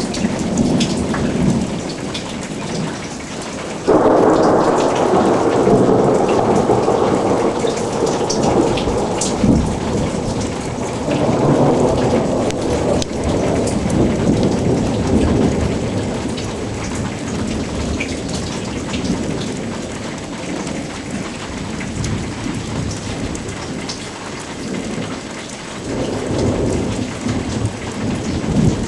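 Thunderstorm: steady rain falling, with thunder. A sudden loud clap about four seconds in rolls on for several seconds, and another rumble builds near the end.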